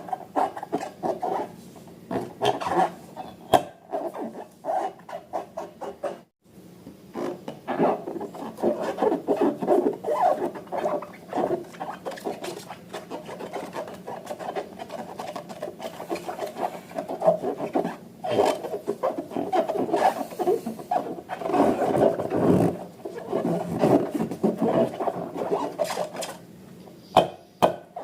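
Slime and balloons being handled: a continuous run of irregular, short rubbing, squishing and crackling sounds, broken by a brief gap about six seconds in.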